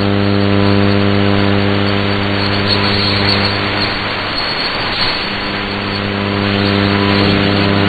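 Shortwave AM broadcast signal between programmes, with no speech or music: a steady hum with a row of evenly spaced overtones, under a constant hiss of static.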